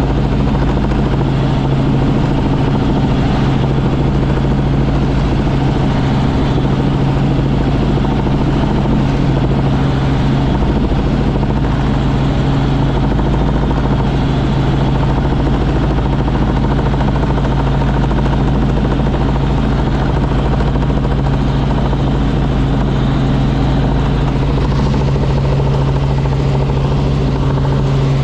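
Robinson R44 Raven II helicopter in flight: its six-cylinder Lycoming piston engine and rotors give a steady, loud drone with a strong low hum.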